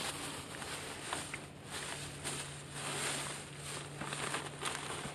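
Plastic shopping bag rustling and handling noise as the bag and camera are moved, with scattered small clicks.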